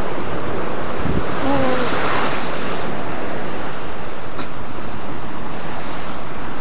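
Sea surf surging and breaking against the foot of a rock cliff: a steady loud rushing that swells around two seconds in. Wind is blowing across the microphone.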